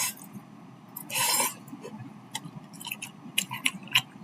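A person chewing a mouthful of spicy instant noodles, with scattered wet mouth clicks. There is a short hiss about a second in.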